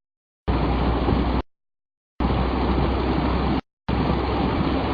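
Steady road noise inside a moving car, heard in three chunks of about a second each, with sudden total dropouts to dead silence between them, as from a live stream losing its connection.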